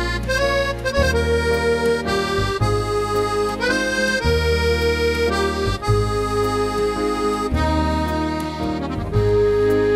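Accordion music: a melody of held reedy notes over bass chords that change every second or two.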